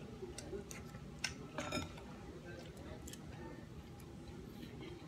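Metal spoon and fork clinking and scraping against a glass bowl while scooping up food, a handful of sharp clicks in the first two seconds, the loudest a little over a second in.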